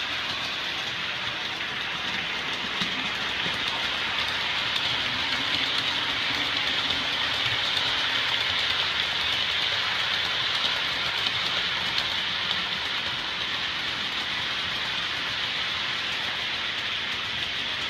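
Model railway trains running on the layout, with a steady whirr of the model locomotives' electric motors and their wheels on the track. Faint ticks come through the whirr.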